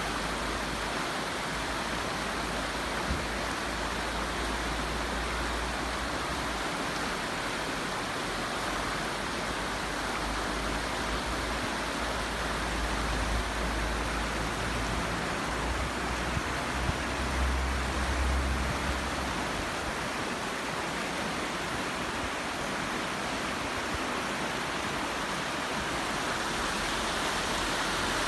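A train in motion: a steady rushing noise with a low rumble underneath that swells and fades, growing stronger midway before easing off.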